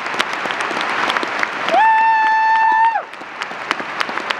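Audience applauding and clapping, with a single steady high note held for about a second partway through.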